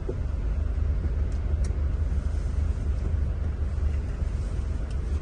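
Scania engine of a Marcopolo Paradiso 1800 DD double-decker coach running with a steady low rumble, heard inside the passenger cabin.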